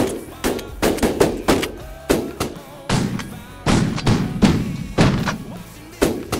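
Shotgun volley from several hunters firing at passing snow geese: about a dozen loud shots in quick, uneven succession, each trailing off briefly.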